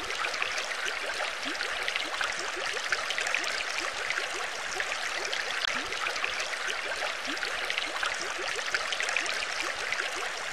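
Steady bubbling, trickling water ambience, thick with many small quick bubble blips.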